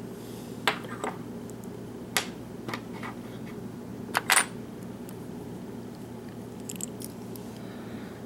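Small metal parts of a disassembled padlock clicking and clattering on a hard surface: a handful of sharp clicks, the loudest two close together about four seconds in.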